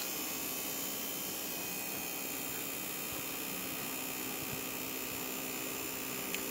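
Electric fuel lift pump on a 6.5 L turbo diesel running steadily with the key switched on, an even hum with a few steady whining tones as it builds fuel pressure.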